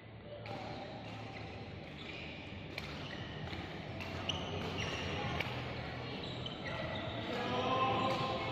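Badminton being played in an indoor hall: several sharp racket hits on the shuttlecock at irregular gaps of about a second, with short shoe squeaks on the court floor over steady hall noise.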